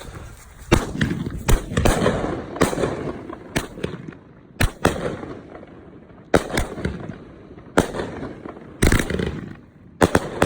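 A 25-shot, 1.5-inch consumer firework cake (Red Apple Fireworks Astro Cat) firing. Sharp shots and bursts come at irregular intervals, roughly one a second, with a rushing, crackling noise trailing several of them.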